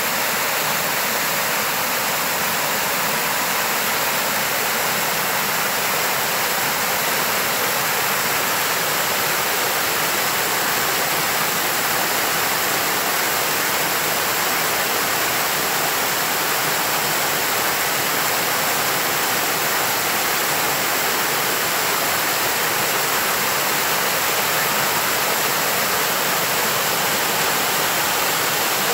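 Water rushing and splashing over rocks in a small cascade, a steady, unbroken rush.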